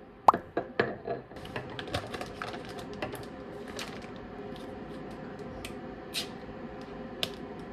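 Plates clacking down on a stainless steel counter, several sharp clicks in the first second. Then the rustle and small clicks of plastic pudding cups being unwrapped and handled, and a few clicks as a cup's lid is peeled off.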